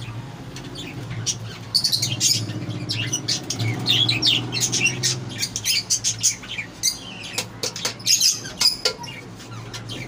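Budgerigars chirping and squawking in rapid, overlapping short calls, over a low steady hum.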